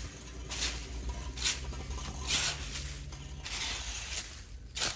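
Small hand rake scraping and raking dry fallen leaves across a concrete street and off a drain grate, about one rustling stroke a second, five strokes in all.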